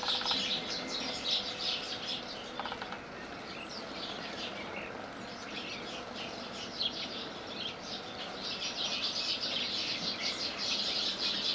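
House sparrows bathing in a shallow dish of water, their fluttering wings throwing up rapid bursts of splashing. The splashing thins out for a few seconds after the start and picks up again about six seconds in.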